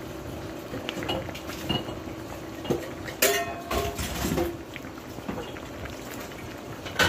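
Thick chowder with dumplings simmering in a pan: small bubbling pops over a steady low hum, with clinks and scrapes of cookware, the loudest clatter about three seconds in and a sharp knock near the end.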